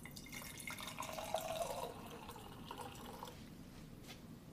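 Water being poured from a plastic cup into a glass jar, splashing for about three seconds before it stops.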